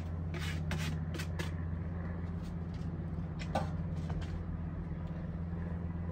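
A metal spoon scraping and clinking chopped cilantro and tomato off a plate into a plastic tub, a few quick scrapes in the first second and a half, then a single knock about halfway through, over a steady low hum.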